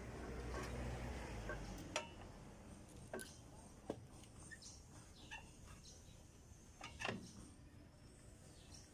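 Faint metallic clicks and knocks as a relined brake shoe is worked into place on a truck's rear drum-brake backing plate, a handful of sharp knocks with the loudest about two seconds in and about seven seconds in.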